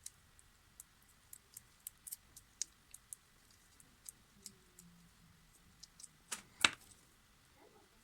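Light, irregular clicks and taps of small hard parts being handled, with one louder knock about six and a half seconds in.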